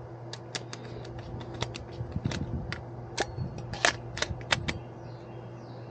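Irregular sharp clicks and clacks of small hard objects being handled, some fifteen to twenty over a few seconds, the loudest around the middle, over a steady low hum.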